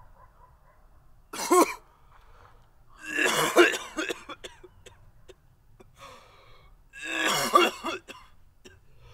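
A man coughing in three loud fits: a short one just over a second in, then longer ones around three seconds and seven seconds in.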